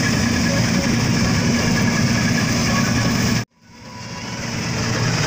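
Self-propelled combine harvester running steadily while cutting wheat: a continuous engine drone under a wide machine noise. About three and a half seconds in the sound cuts out abruptly, then fades back up over the next second.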